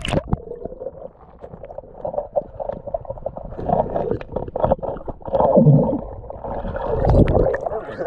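A sharp splash right at the start, then muffled underwater gurgling, bubbling and low rumbling heard through a submerged action camera's waterproof housing.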